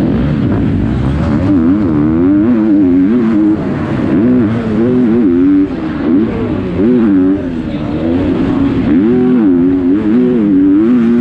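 Onboard sound of a 250cc four-stroke motocross bike engine at race pace, its pitch climbing and falling again and again as the throttle is opened and chopped through the turns and over the jumps, with a couple of brief drops in level.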